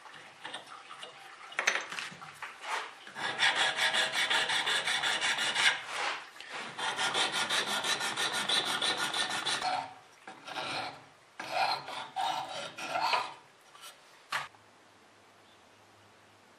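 Bison bone being shaped by hand with quick back-and-forth rasping strokes, in long even runs and then shorter bursts. The strokes stop suddenly about fourteen seconds in, leaving only a faint steady hum.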